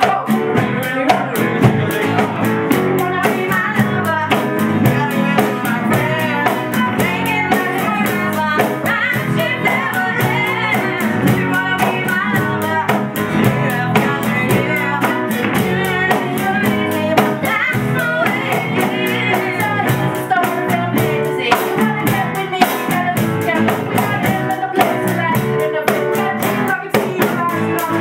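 Live band playing a pop-rock medley: a steady drum-kit beat under guitar and singing.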